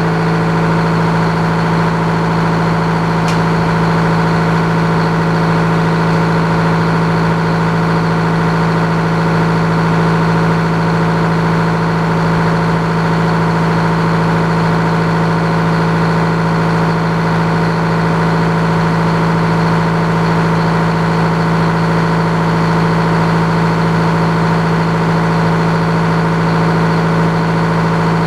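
The power unit of an old Frick sawmill running steadily at one constant speed, a loud unchanging drone.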